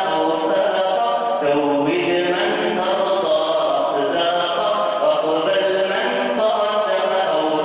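A man singing an unaccompanied Arabic Islamic nasheed into a microphone, in long held phrases that bend and waver in pitch.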